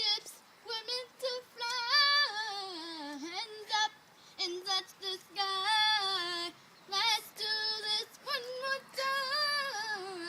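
A female voice singing a pop song with no accompaniment. The phrases are held and slide up and down in pitch, with a wavering vibrato on the long notes and short breaths between lines.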